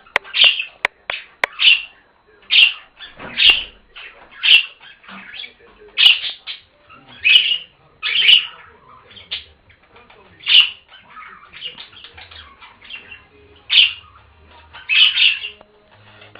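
Pet budgerigars calling: short, loud, sharp calls about once a second, with softer chatter between them and a few sharp clicks near the start.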